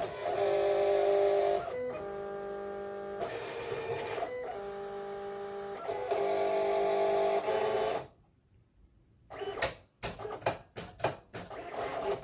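Silhouette Cameo 4 cutting machine's stepper motors whining in steady tones that jump to a new pitch with each move of the mat and tool carriage, as it scans the print-and-cut registration marks. About eight seconds in it pauses briefly, then gives a run of short clicks and quick motor bursts.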